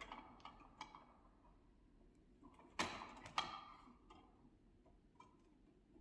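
Hand wire stripper working 14-gauge wire: two sharp clicks about half a second apart near the middle, with a few faint ticks of handling around them.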